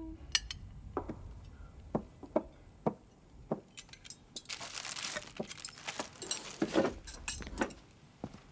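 Scattered light clinks of glass and tableware with small knocks, and a brief hiss around the middle.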